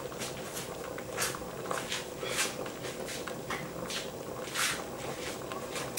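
Vegetables and smoked sausage sizzling in a Cookeo multicooker's bowl on its browning setting: irregular crackles and pops, a few a second, over a steady faint hum.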